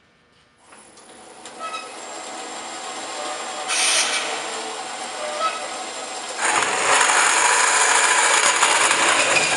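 Roll-In TF1420 vertical metal-cutting band saw starting up, then its blade cutting through a metal tube with a steady grinding rasp. The rasp grows louder in the last three seconds and drops away at the end as the cut goes through.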